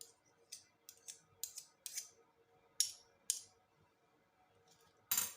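A small metal teaspoon scraping and clicking against a dish as room-temperature butter is scooped out: about a dozen short, light scrapes at an uneven pace, with a sharper clink near the end.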